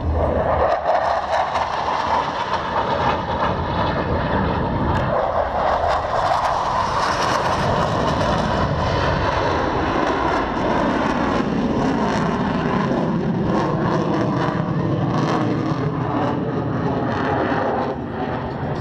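A display jet aircraft's engine noise during a flying display, heard as a steady, continuous roar that swells slightly about a second in.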